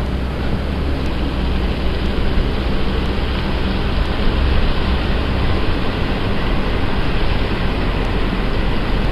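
Steady rumble and road noise of a vehicle on the move.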